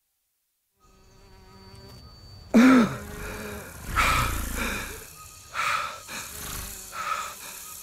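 Forest ambience fading in from silence about a second in, with insect-like buzzing. About two and a half seconds in comes a sudden loud call that rises and falls in pitch, followed by three more loud calls or cries spaced about a second and a half apart.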